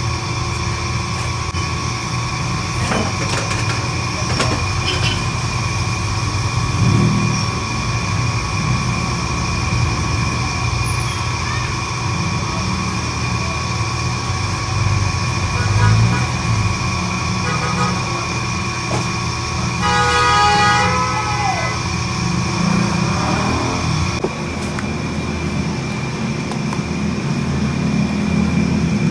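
Steady mechanical hum over a low rumble, with a few light clinks and, about twenty seconds in, a brief horn-like toot that ends with a falling pitch.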